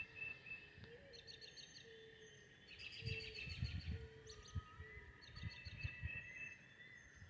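Faint dawn chorus of several birds chirping and trilling, with a short low call repeating about once a second. A few low thumps come in the middle.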